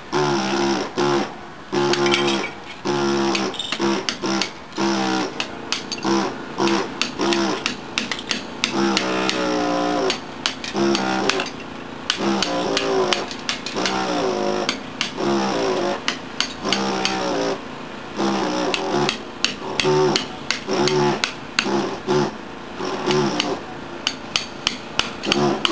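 Gison GPW-4500 pneumatic air hammer with a chisel bit chipping ceramic tiles off a wall. It runs in short stop-start bursts of a buzzing hammering, each a second or less, mixed with sharp cracks.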